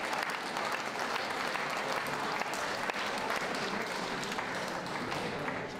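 Audience applauding: dense, steady clapping that eases off slightly near the end.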